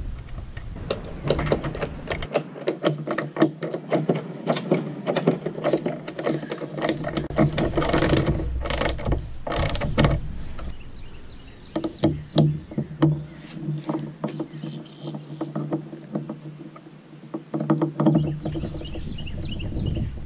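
Rapid metal clicking and knocking of an aluminium outrigger base and its hardware being fitted up under a boat's T-top, over a steady low hum.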